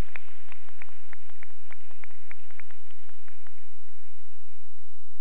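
Applause with many individual hand claps, thinning out and dying away about three to four seconds in.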